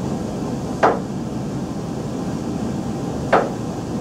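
Chef's knife slicing zucchini into rounds, each cut ending in a sharp knock on the cutting board: two cuts, about two and a half seconds apart, over a steady room hum.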